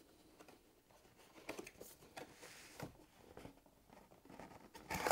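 Faint scrapes and rustles of a cardboard product box being handled and opened on a wooden table, with a sharper knock near the end.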